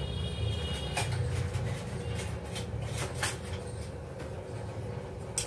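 Low steady background hum with several short, light clicks and knocks, a cluster of them in the middle and one more near the end.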